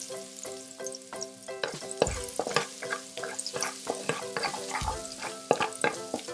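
Minced garlic sizzling in hot oil in a wok, with a metal spatula scraping and knocking against the pan as it is stirred. Soft background music with steady held notes runs underneath.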